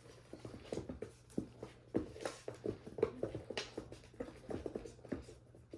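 A long-haired cat's paws and claws scrabbling and tapping on a wooden floor as it pounces and twists after a ribbon wand toy: a rapid, irregular run of light taps and scratches.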